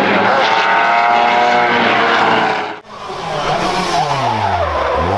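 Lancia 037 rally car's supercharged four-cylinder engine running at high revs, held steady. After a sudden cut about halfway through, the engine note falls steeply as the revs drop away.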